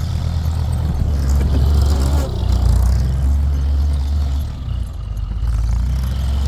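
BM Volvo H10 wheel loader's diesel engine running steadily with a low, even note as the loader pushes a bucketload of snow.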